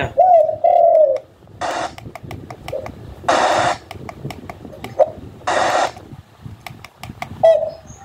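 Recorded bird calls, low cooing notes, played through a portable bird-luring loudspeaker (a WS898 multi-function amplifier). Three short bursts of hiss fall between the calls.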